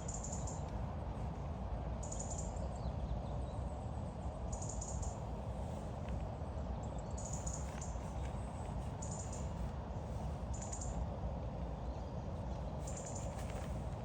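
Outdoor ambience: a steady low rumble and hiss, with a bird's short high-pitched calls repeating every second or so.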